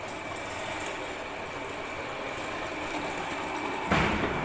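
Steady mechanical hum of workshop machinery with a faint steady whine, and one loud knock near the end.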